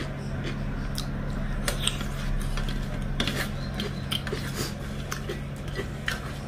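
Close-up eating sounds: chewing and small mouth clicks, with fingers picking and scraping food on a stainless steel plate. A steady low hum runs underneath.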